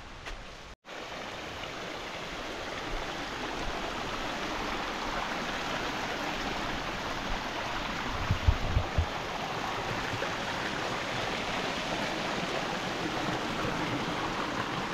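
Small mountain stream splashing down a rocky cascade: a steady rush of water that grows a little louder over the first few seconds. A few low thumps come about eight seconds in.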